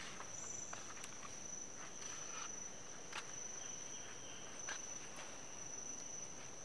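Forest insects, crickets or cicadas, keeping up a steady high-pitched drone, with a few short chirps and clicks over it.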